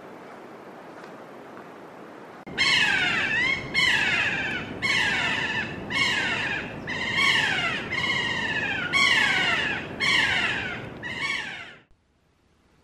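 A parrot calling over and over: about nine loud calls, roughly one a second, each sliding down in pitch, starting a couple of seconds in and stopping shortly before the end. Before the calls there is only a faint steady background hiss.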